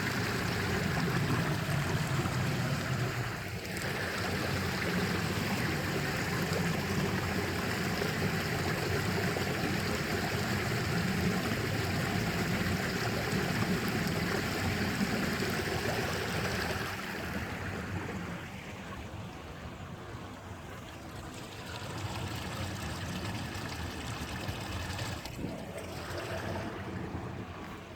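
Stream water flowing in a steady rush, growing quieter and duller about two-thirds of the way through.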